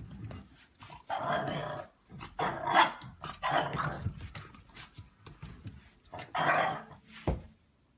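A dog growling and barking in a series of short bursts, with a brief sharp snap near the end.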